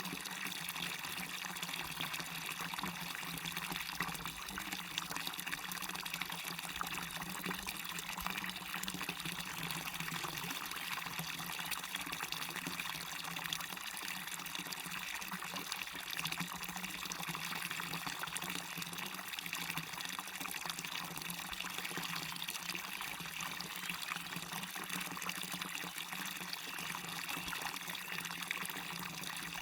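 Waterfall: water falling and splashing in a steady, even rush, with most of the sound in the upper, hissing range.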